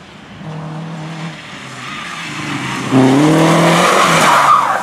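Rally car engine under hard throttle, revs climbing. It grows much louder about three seconds in, with tyre noise over the engine.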